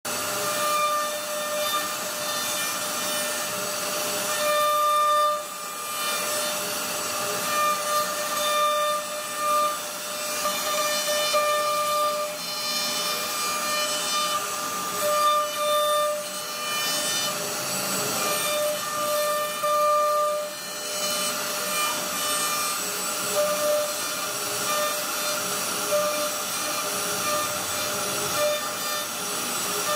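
CNC router spindle running while its carving bit cuts a relief pattern into a wooden board: a steady high whine that fades in and out over the rasp of the bit chewing through the wood.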